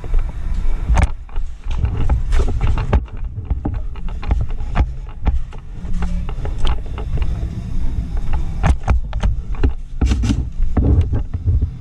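Airsoft guns firing in irregular sharp clacks and snaps, some in quick clusters, over a steady low rumble of movement and handling noise on a body-worn camera.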